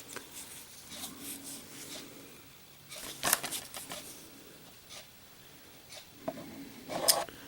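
Quiet handling noises: soft rustles and a few light taps and clicks, the sharpest about three seconds in and another just before the end.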